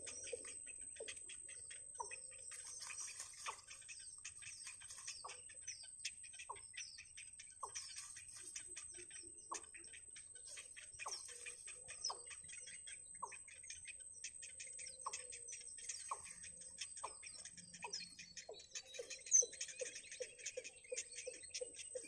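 Baby birds in the nest calling: short, dropping chirps about once a second, then a rapid run of low pulsed calls near the end. Under them run a dense high ticking and a steady high-pitched whine.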